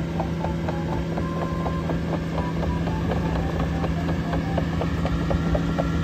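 Caterpillar AP655F tracked asphalt paver on the move: a steady diesel engine hum under a rapid, irregular run of clicks and short squeaks from its crawler undercarriage.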